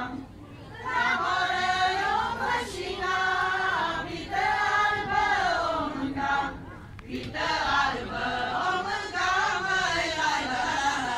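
A women's Romanian folk choir singing together. The song comes in phrases of a few seconds, with short pauses between them.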